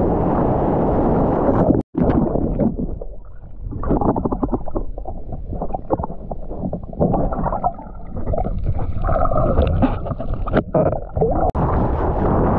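Whitewater rushing and wind on the microphone of an action camera riding a wave. About two seconds in this cuts sharply to muffled underwater gurgling and crackling bubbles, heard through the camera below the surface. Near the end it cuts back to surface water and wind noise.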